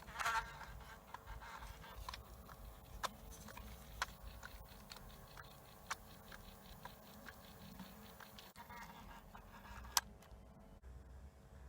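Scattered light clicks and small handling noises, with one sharp click about ten seconds in, over a faint steady hum.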